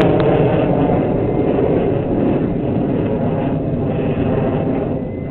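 Jet aircraft flying past: a loud, dense rush of engine noise that slowly fades.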